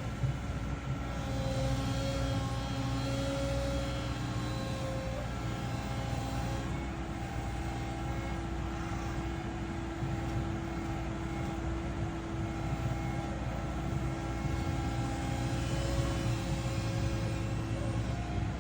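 CAT 315 hydraulic excavator's diesel engine running steadily, with whining tones that come and go as the hydraulics are worked.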